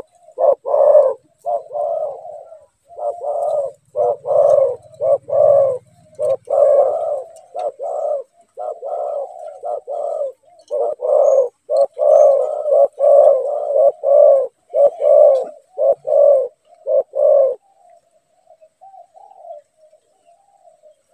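Spotted dove (cu gáy) cooing: a long run of short coos repeated one after another, turning to fainter, shorter notes for the last few seconds.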